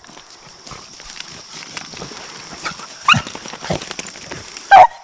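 Deer-hunting hounds barking a few times: two short barks about three seconds in and a louder bark near the end.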